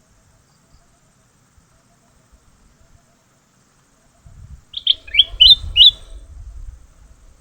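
A bird gives a quick run of about five short, sharp chirps, about five seconds in, over a low rumbling noise.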